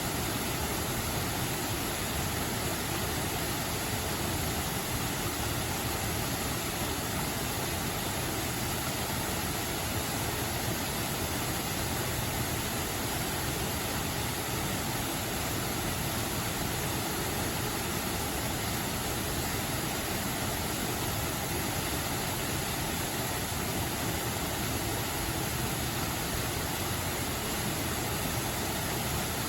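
Mountain stream water flowing, a steady even hiss that does not change.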